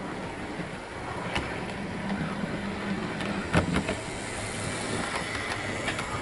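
Heljan Class 14 model diesel locomotive running past on the track: a quiet, steady motor hum with a few sharp clicks, the loudest about three and a half seconds in as it passes.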